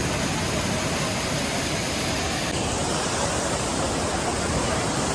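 Waterfall close by, its falling water rushing with a steady, even hiss.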